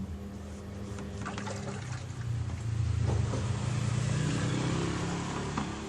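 Samsung WA80U3 top-loading washing machine running with water in the tub: a low motor hum with water churning, growing louder about two and a half seconds in.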